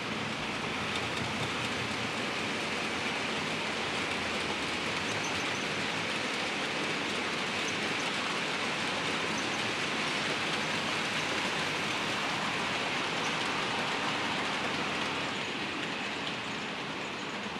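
HO-scale model train running on the layout track: a steady rolling hiss of small wheels on rails and the electric motor, easing off a little near the end.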